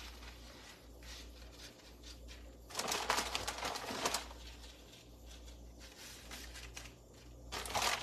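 Plastic bag of shredded mozzarella crinkling and rustling as cheese is shaken out onto a flatbread, loudest about three seconds in and again near the end, over a low steady hum.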